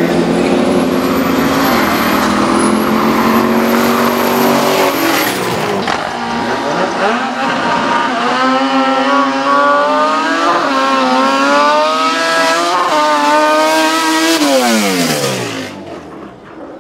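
Drag-racing cars' engines held at steady revs at the start line, then a car accelerating hard down the strip. Its engine climbs in pitch through two gear changes, then drops steeply and fades near the end.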